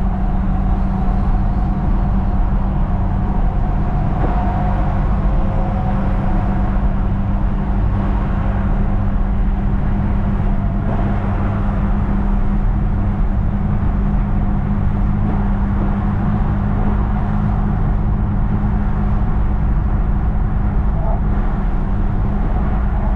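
An engine running steadily: a constant low hum and drone that holds the same level and pitch throughout.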